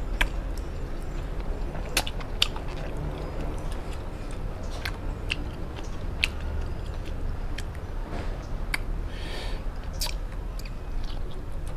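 Close-miked chewing of steamed chicken eaten by hand, with many scattered sharp wet mouth clicks and lip smacks.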